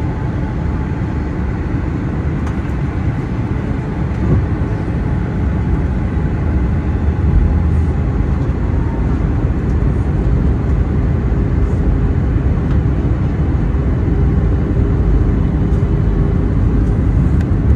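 Steady low rumble of an Airbus A320 heard from inside the passenger cabin, growing slightly louder about seven seconds in.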